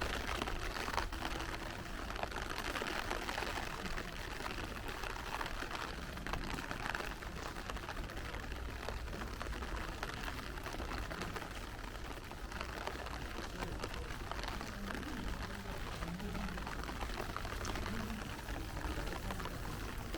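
Steady rain falling, with water running and splashing on hard ground.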